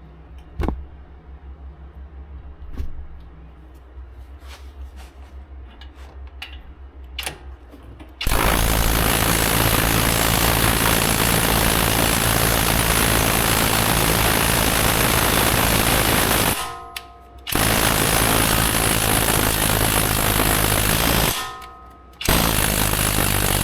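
Impact wrench hammering on a fastener in three long runs, the first starting about eight seconds in after some quiet clicks of tool handling, with brief stops where the motor winds down.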